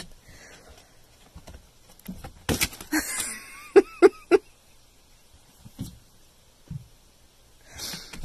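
A kitten's paws striking a mirror as it bats at its reflection: irregular light knocks and taps, with three sharper knocks in quick succession about four seconds in.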